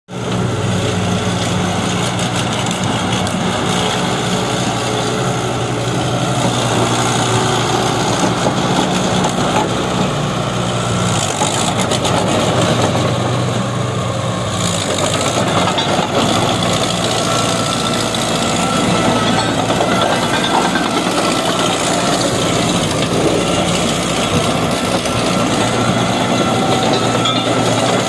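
Komatsu D31E bulldozer's diesel engine running steadily, with a low, even drone.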